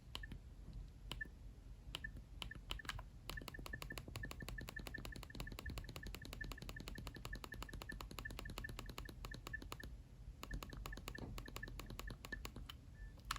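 A Nokia 7710 ringtone playing quietly through the phone's speaker: short, high chirping beeps, sparse at first, then a fast even run of about six a second, thinning out again near the end.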